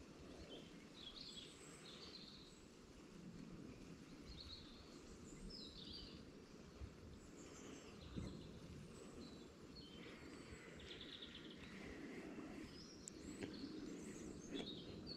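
Quiet outdoor ambience: faint, scattered bird chirps over a low, steady rumble.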